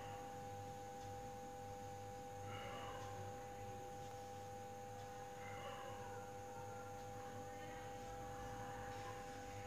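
Steady electrical hum: two constant whining tones over a low hum, with faint soft rustles twice.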